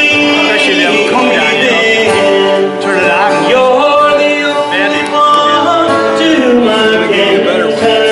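Gospel hymn played on acoustic guitar, with a singing voice over sustained, strummed chords.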